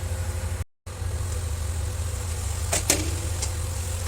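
Steady low mechanical hum in a kitchen, broken by a brief dropout just under a second in, with one sharp clink of kitchenware about three seconds in.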